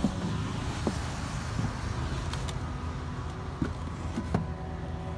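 Steady low hum of a Ford Transit van running while parked, heard from inside the cabin, with several short knocks and bumps as someone moves through the van to the rear seats.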